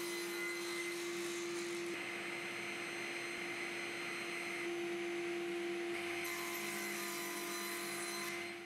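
Steady drone of a running electric motor, a held hum under a whirring hiss, with no cutting heard. It cuts off at the end.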